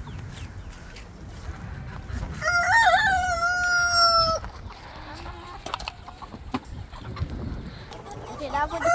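A rooster crows once, about two and a half seconds in: a wavering start, then a long held note of about two seconds. A second crow begins at the very end.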